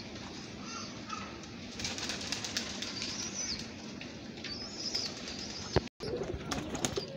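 Domestic pigeons cooing in a low steady murmur, with scattered wing flaps and a few high bird chirps; the sound drops out briefly about six seconds in.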